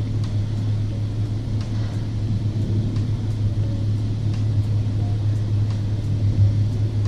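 Steady low rumble of a BMW 4 Series idling, heard from inside its cabin.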